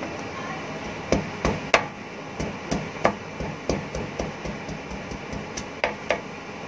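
Kitchen knife chopping garlic cloves on a wooden cutting board. A series of sharp, irregular knocks, roughly three a second, begins about a second in, over a steady background noise.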